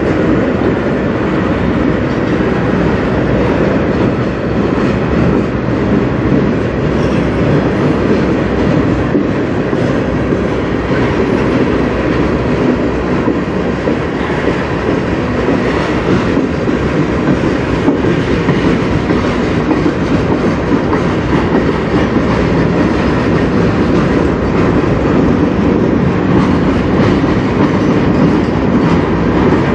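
Freight train passing at speed: boxcars and tank cars of a CN manifest train rolling by, a steady loud rumble of steel wheels on rail.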